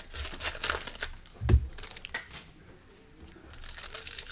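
Foil trading card pack being torn open, its wrapper crinkling and crackling, with a single dull thump about a second and a half in.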